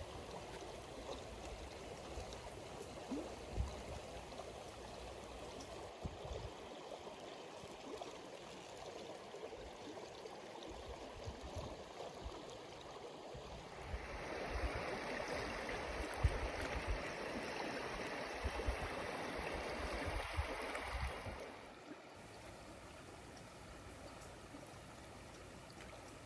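Running water of a stream, a steady rushing, louder and brighter for several seconds past the middle, then dropping off suddenly.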